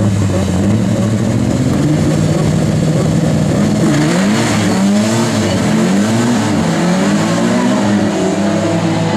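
Rallycross car engines running hard: the pitch holds fairly steady at first, then from about four seconds in it rises and falls repeatedly as the revs climb and drop through gear changes.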